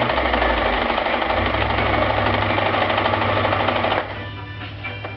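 Sewing machine running fast, a dense rapid mechanical clatter that stops about four seconds in, giving way to soft background music.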